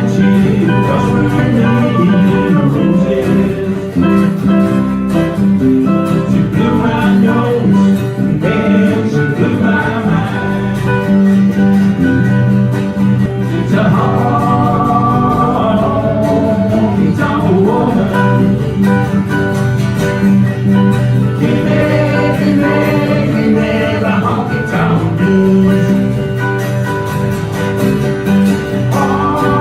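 Live acoustic country band playing with guitars and a melody line that bends up and down in pitch, with no words sung.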